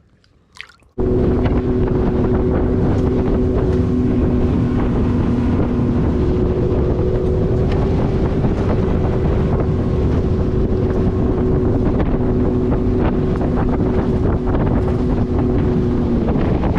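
Boat motor running at a steady cruising speed with the boat underway and wind buffeting the microphone. It starts abruptly about a second in and holds an even pitch throughout.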